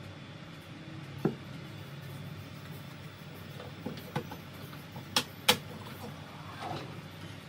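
Steady low hum with a handful of sharp knocks and clicks. One comes about a second in, a few more come near the middle, the two loudest are close together past the middle, and a softer rustle follows near the end.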